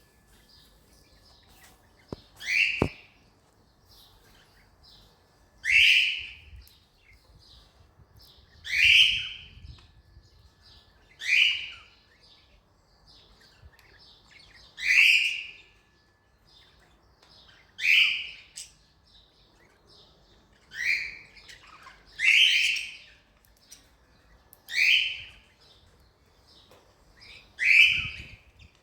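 Cockatiel calling, about ten loud calls spaced roughly three seconds apart, each sweeping down in pitch, with faint softer chirps between them.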